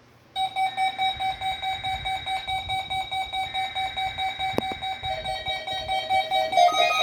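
Weather alert radios going off in the weekly test of the warning alarm: a pulsing electronic alarm beeps about three times a second, starting half a second in. More alarm tones at other pitches join in near the end as further radios sound together.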